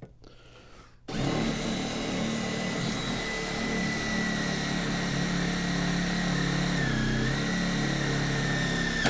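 Power drill starting about a second in and running steadily, drilling a hole for a self-tapping screw to fix a mount. Its whine dips briefly in pitch and recovers near the end.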